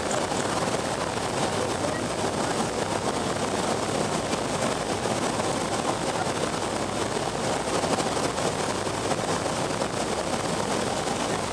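Steady cabin noise inside a BAe Avro RJ85 airliner on final approach, flaps down: the four turbofan engines and the rush of air, heard from a window seat over the wing.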